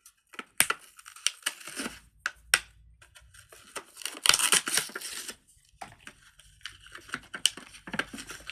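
Plastic packaging being torn open and crinkled by hand to unwrap a fidget toy: irregular crackles and clicks, with a longer tearing rip about four seconds in.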